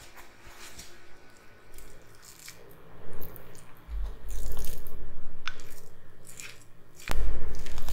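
A spatula scooping soft almond cream and scraping it into a baked tart shell, with small clicks and scrapes. Dull low bumps come about four seconds in and again about seven seconds in, the second the loudest.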